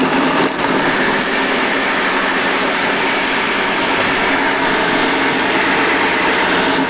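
Ninja Smart Screen blender running steadily on its low setting, its blades churning thick mayonnaise with crumbled cooked bacon.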